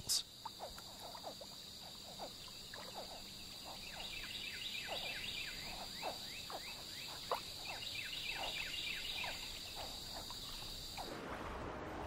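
Swamp ambience: a steady high-pitched insect drone with many short, falling frog calls over it. Near the end the drone stops and gives way to a soft, even rushing noise.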